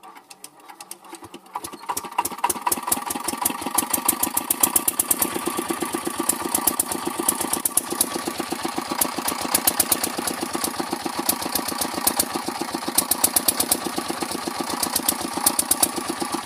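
Small diesel pump-set engine being hand-started: slow strokes speed up over the first couple of seconds as it catches, then it runs with a steady thumping beat. The beat comes in louder bunches every few seconds, the misfire and up-and-down speed the owner is trying to cure.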